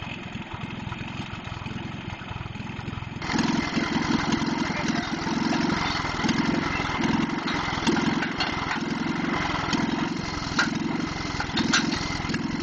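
Small gasoline engine of a horse-drawn baler running steadily. About three seconds in it gets louder and takes on a regular pulsing, roughly one and a half beats a second.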